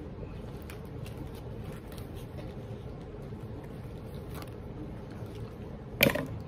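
Steady low room rumble with faint rustles and small clicks of items being handled, then one short, loud, sharp noise near the end.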